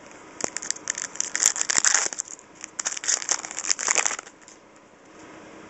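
A trading-card pack wrapper crinkling and tearing as the pack is opened by hand, in a run of irregular crackly bursts that die down about four seconds in.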